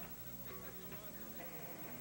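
Rock band playing live on stage: electric guitar and bass notes over drums keeping a steady beat.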